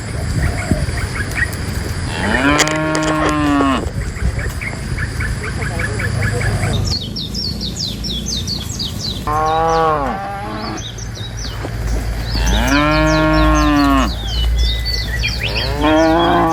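Cows mooing: four long calls, each arching up and then down in pitch. The first comes about two seconds in, two more come in the second half, and the last starts near the end. Rapid high chirping runs behind the later calls.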